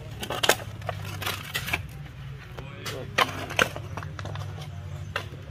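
Steel shovels scraping and knocking into a dry mix of cement, sand and gravel on the ground, turning it by hand for concrete, several sharp scrapes over a steady low hum.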